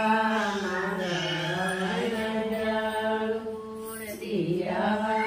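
A woman singing a Chhath devotional song in slow, drawn-out notes, each held for a second or two and bending gently in pitch.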